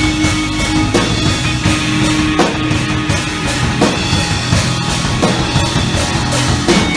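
Rock band playing live: drum kit keeping a steady beat under guitar and sustained chords.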